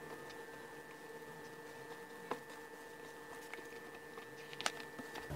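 Faint squishing and patting of a hand kneading soft yeast dough and loose flour in a plastic bowl, with a couple of light knocks, over a steady faint hum.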